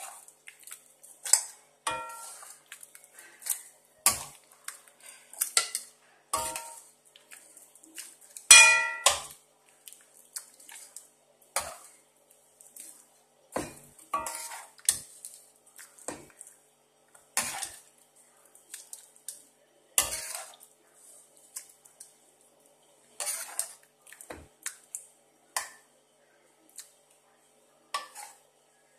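Steel ladle clinking and scraping against a stainless steel pan and a steel bowl while sambar is ladled from one to the other: irregular clinks about once a second, some with a short metallic ring, the loudest clang about a third of the way through.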